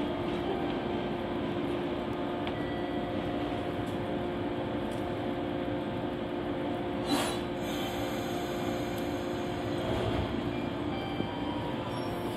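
A 415 series electric train idles at the platform with a steady electrical hum. About seven seconds in, its line breaker closes with a single sharp clunk as power is taken to start the train.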